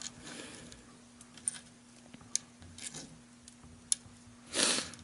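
Small wooden model-ship parts handled on a cutting mat: a few light clicks and taps, then a short louder rustle near the end.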